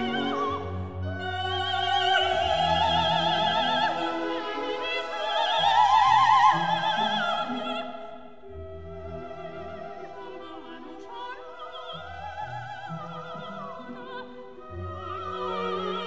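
Operatic singing with orchestral accompaniment: a solo voice with wide vibrato over sustained low notes, swelling to its loudest about six seconds in, then quieter.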